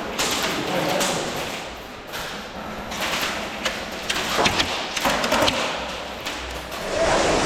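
Scattered thumps and sharp taps at an irregular pace, with indistinct voices in the background.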